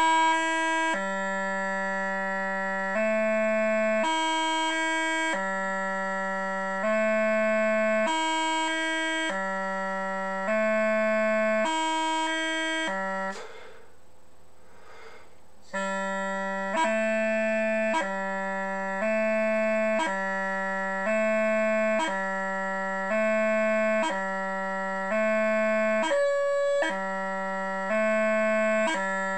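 Scottish bagpipe practice chanter playing an E-gracenote drill: A and low G alternate about once a second, each change broken by a quick E gracenote blip. The playing breaks off for about two seconds near the middle, then resumes in the same pattern.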